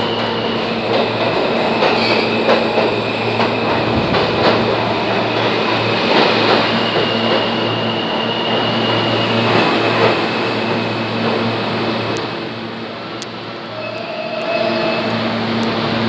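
New York City Subway R160 train pulling into an underground station: loud, steady rumble of wheels and motors as the cars pass, with a high squeal held for several seconds in the first half. The noise eases about thirteen seconds in as the train slows.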